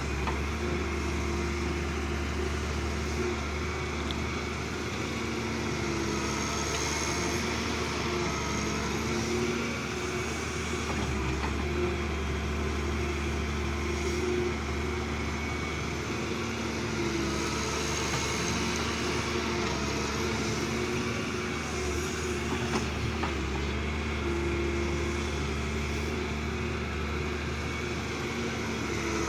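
Diesel engine of heavy earthmoving machinery running steadily, with a strong low hum and a few held tones that come and go.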